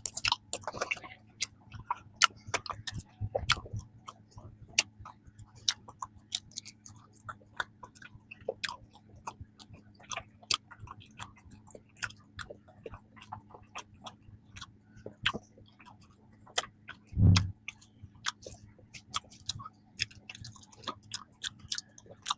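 Close-miked chewing of soft peanut cream bread: irregular wet mouth clicks and smacks. One brief low hum of the voice about seventeen seconds in.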